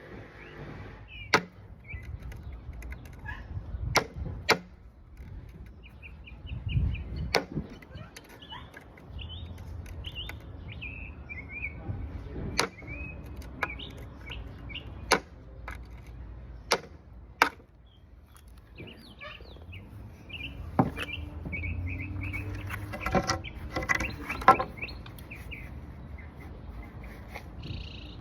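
Irregular sharp knocks and clicks from hand work on the old house, a dozen or so spread apart at uneven intervals. Small birds chirp in short runs in the background.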